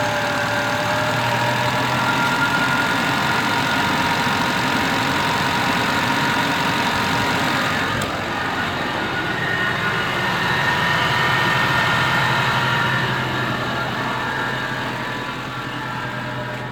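Suzuki Vitara's G16B 1.6-litre four-cylinder engine idling steadily just after a start, its revs settling in the first second. The engine has low compression in number four cylinder, which makes it cough and splutter. A single click comes about eight seconds in.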